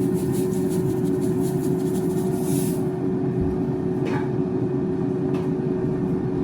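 Proscenic T21 air fryer running on its pizza setting: a steady fan whoosh with a constant motor hum.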